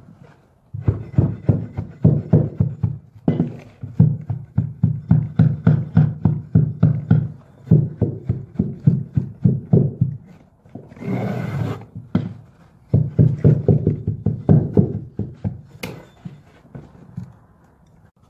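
Rapid hammer blows, about three to four a second, knocking down vinyl stair nosing on a carpeted step, in two long runs. Between the runs there is a short steady rasping noise lasting about a second.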